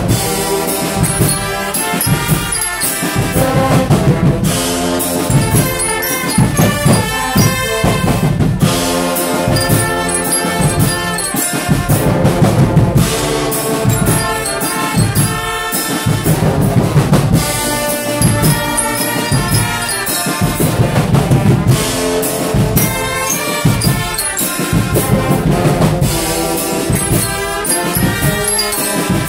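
Swiss Guggenmusik band playing loudly: trombones, trumpets and sousaphones over drums, with a steady pulsing beat.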